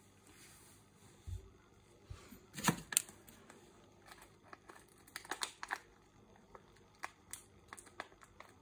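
Faint handling noise of a phone held to the tank: scattered clicks and rustles, loudest in a cluster about three seconds in and again here and there in the second half, over a low steady hum.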